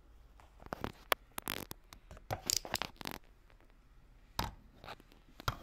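Close handling noises: a run of rustling and scraping in the first three seconds, then two single knocks later on, as the camera is picked up and moved near a plate of pancakes.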